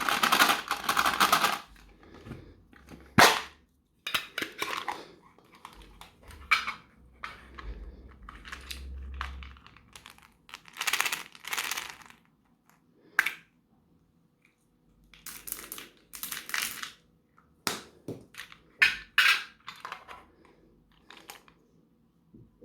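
Meat grinder crushing something brittle: irregular bursts of crunching and crackling, broken by a few sharp cracks.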